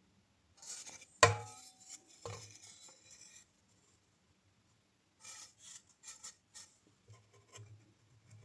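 Small objects being handled on a hard surface: a sharp knock about a second in, then scraping and light clattering that comes and goes, with a few clicks near the end.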